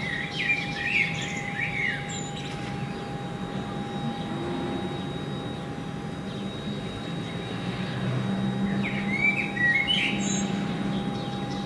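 Small birds chirping in quick bursts, once at the start and again near the end, over a steady outdoor background hum with a thin steady tone.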